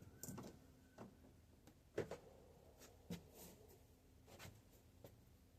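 Scattered light clicks and knocks from hands working on a bicycle, about seven in all, the loudest knock about two seconds in.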